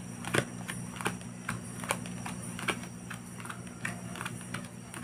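Playing cards being dealt face up one at a time from the deck onto a cloth close-up mat, each card giving a short click, about two a second at an uneven pace.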